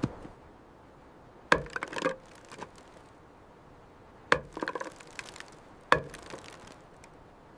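Four sharp knocks of a tool striking timber at uneven intervals, each followed by a brief clatter.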